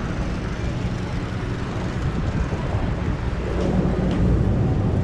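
Busy city intersection ambience: a steady low rumble of idling and passing cars and trucks under a general street hubbub, growing louder about three and a half seconds in.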